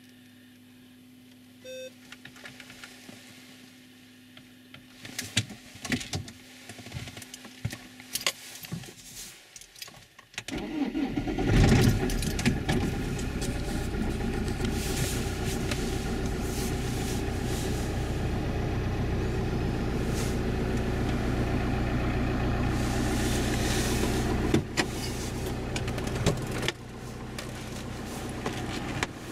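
Opel Zafira's 1.9 CDTI 8-valve diesel (Z19DT) cold-started at about −5 °C, heard from inside the cabin: a few clicks, then the engine cranks and catches about ten seconds in, flares briefly and settles into a steady cold idle that drops in level twice near the end.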